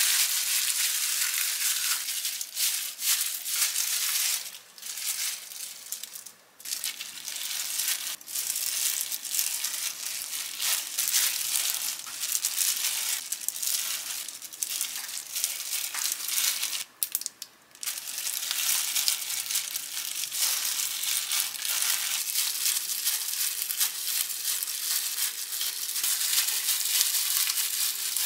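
Clear disposable plastic gloves crinkling and rustling as hands lay fillings and roll gimbap in a silicone mat. It is a dense, close crackle with a few brief pauses.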